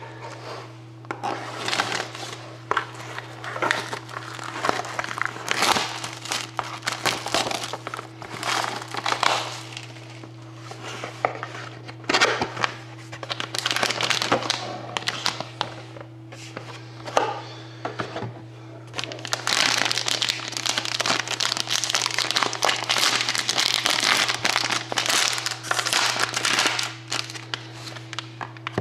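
Plastic wrapping crinkling and tearing in bursts as a sealed box of trading cards is unwrapped and its pack opened by hand. A steady low hum runs underneath.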